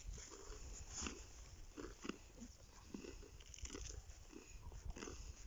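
Faint, irregular chewing and crunching of people eating grilled meat and bread.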